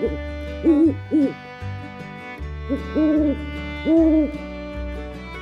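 Owl hooting: a handful of short, arched hoots, some in pairs, with the last two held longer. Soft background music with low bass notes runs underneath.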